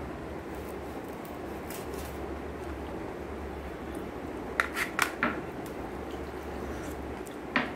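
Kitchen knife tapping and clicking against a plastic cutting board while dragon fruit is cut, with a few sharp clicks about four and a half to five seconds in and one more near the end, over a steady low hum.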